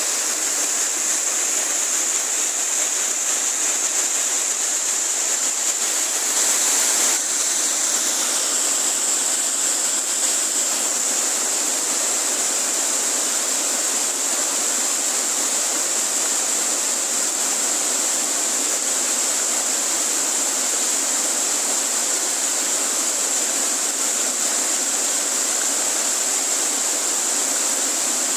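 Mountain stream rushing over boulders and small cascades: a steady, close rush of water.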